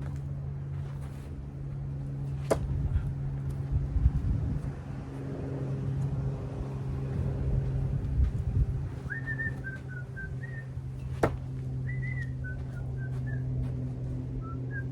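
Steady low hum with two sharp knocks about nine seconds apart. From about nine seconds in, a person whistles a tune in short stepping notes.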